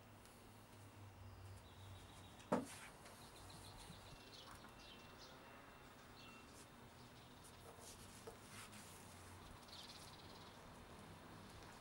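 Near silence with faint bird chirps and a low steady hum, broken by one sharp tap about two and a half seconds in.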